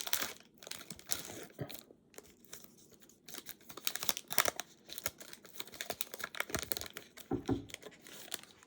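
Plastic foil wrapper of a Panini Hoops basketball card pack crinkling and tearing as it is opened, with the cards rustling in the hands.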